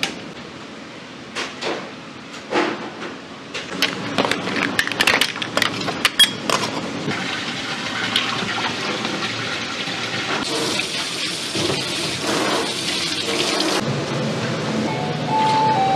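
Sharp clicks and knocks of a knife working on a clam shell against a cutting board. About seven seconds in, this gives way to a steady rush of water over live octopuses in a plastic crate.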